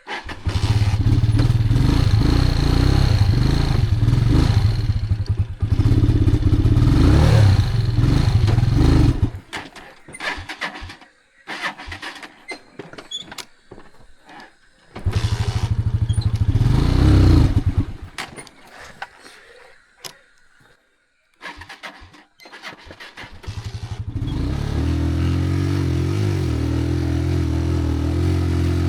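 An engine running in two loud spells, cutting to quiet between them, then settling into a steady idle near the end.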